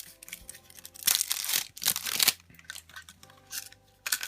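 Wrapper packaging crinkling and tearing as a candy surprise toy is unwrapped by hand, loudest in a run of rustles in the middle, with a few small clicks and rustles around it.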